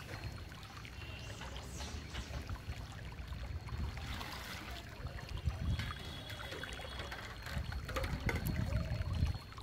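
Water splashing and trickling as stainless steel bowls and pots are washed by hand in a large steel basin; a bowl lifted from the basin pours water back in about halfway through. A low rumble runs underneath.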